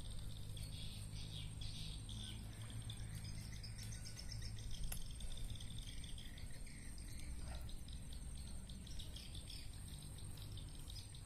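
Outdoor ambience of insects trilling and birds chirping, with a thin steady high-pitched tone over it.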